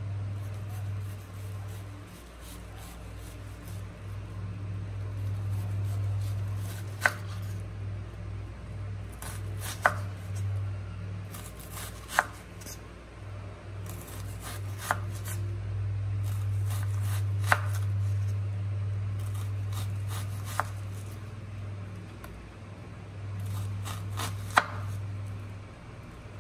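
Chef's knife dicing an onion on a wooden cutting board: runs of quick cutting strokes with about seven sharper knocks of the blade on the board, over a steady low hum.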